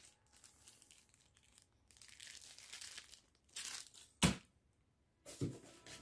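Cardboard box and polystyrene foam packing being handled: faint scraping and rustling, with a few short bursts and one sharp knock about four seconds in.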